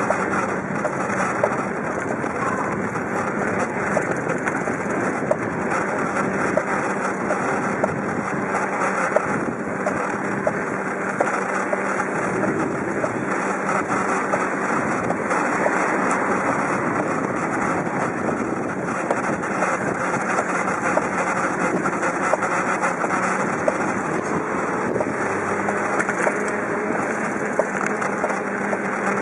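Steady wind noise on the microphone of a bicycle-mounted compact camera while riding, with small ticks and rattles scattered throughout.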